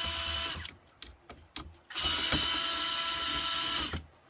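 Cordless drill-driver running in two runs of about two seconds each, backing out screws, with a few light clicks in the pause between them.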